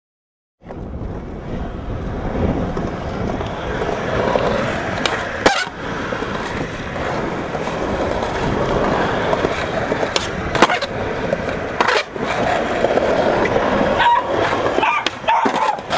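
Skateboard on Bones STF urethane wheels rolling steadily over pavement, with a few sharp clacks along the way.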